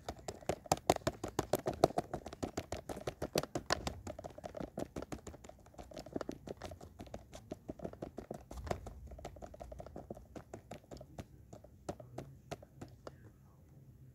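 A fast, irregular run of sharp clicks or taps, about five or six a second, loudest in the first few seconds and growing sparser near the end.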